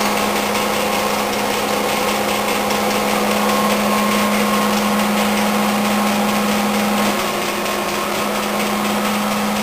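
Okuma-Matrix GP33 OD cylindrical grinder running a plunge-grind cycle: a steady hum with a hiss from the spinning 24-inch grinding wheel. The level drops slightly about seven seconds in.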